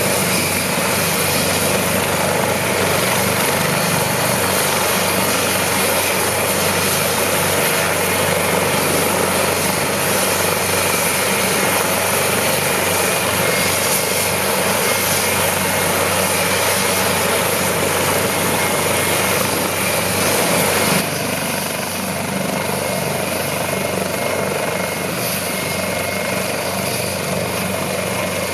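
AgustaWestland AW189 twin-turbine helicopter running on the ground with its main and tail rotors turning: a steady, loud mix of rotor and turbine noise. The sound drops slightly and abruptly about two-thirds of the way through.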